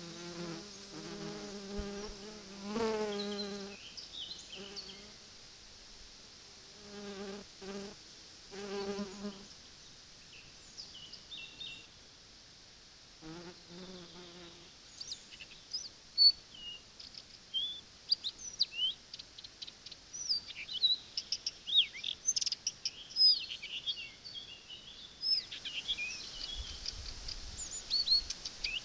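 A flying insect buzzing in three short passes, a steady drone that comes and goes. From about halfway, many quick high chirps and squeaks take over.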